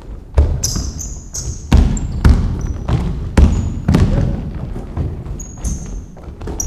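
A basketball being dribbled on a hardwood court, bouncing at an irregular pace, with short high-pitched sneaker squeaks as players cut and stop.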